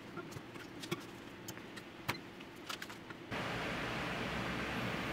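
Scattered light clicks and clinks of small objects being handled. About three seconds in, this switches abruptly to a steady rush of air from electric desk fans running.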